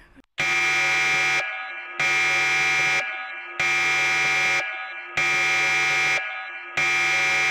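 Home security panic alarm siren sounding in repeated pulses: a steady, piercing electronic tone about a second long, then a brief fading tail, repeating about every second and a half, five times.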